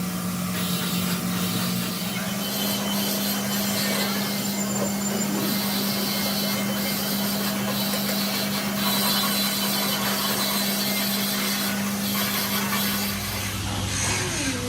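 A machine running with a steady hum over a continuous hiss; the hum drops to a lower pitch about thirteen seconds in.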